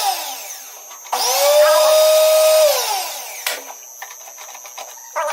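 A small electric motor spinning up quickly, running at a steady whine for about a second and a half, then winding down with a falling pitch, followed by a few light clicks and a brief burst near the end.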